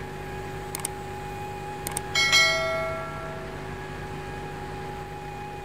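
Subscribe-button animation sound effect: a few quick clicks, then a bright bell chime about two seconds in that rings and fades away over a second or so, over a steady machinery hum.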